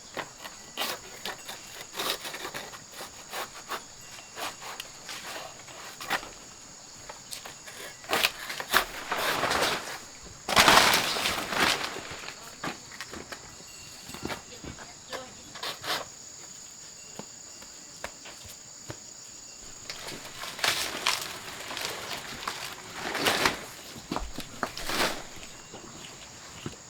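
Insects, crickets or cicadas, shrilling steadily in the background, under irregular rustles, scrapes and light knocks of people working and moving on foot; the loudest rustling comes about ten seconds in and again near the end.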